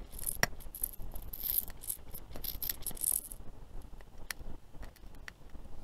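Mamod Minor 1 model steam engine's boiler heating up: irregular small clicks and crackles with brief hissing spurts, densest in the first few seconds, as expanding water is forced out past the safety valve.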